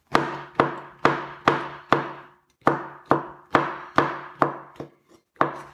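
Kitchen knife chopping fresh shiitake mushrooms on a bamboo cutting board: a steady series of sharp knocks, about two a second, with a short pause about halfway through.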